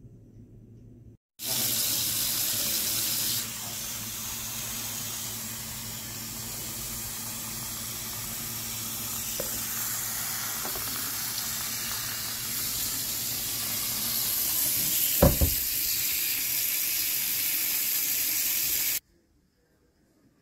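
Water running in a steady rush. It starts suddenly about a second in, is louder for its first two seconds, and cuts off suddenly near the end, with a single knock about fifteen seconds in.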